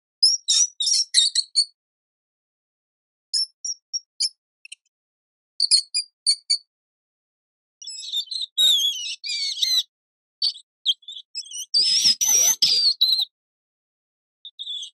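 Rodent squeaking: quick runs of short, high-pitched squeaks with silent gaps between them, then longer wavering squeals from about eight seconds in. The loudest, densest squealing comes around twelve to thirteen seconds in, with a rustling scuffle under it.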